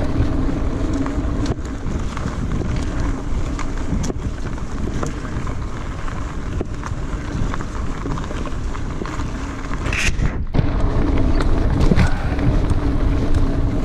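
Mountain bike ridden fast down a dirt forest trail: wind buffets the microphone over a steady rumble of tyres on dirt, with many quick rattling clicks from the bike over bumps. A brief sharp high sound comes about ten seconds in.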